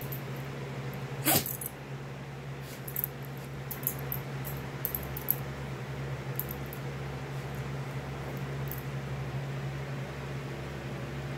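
Miniature pinscher and cat play-fighting, with scuffling and the dog's collar tags jingling in short, scattered clicks, and one sharp louder sound about a second in. A steady low hum runs underneath.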